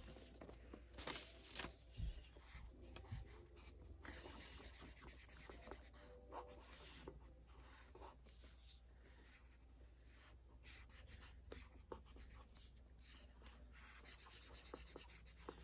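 Felt-tip marker scribbling on paper, faint irregular strokes as a shape is coloured in.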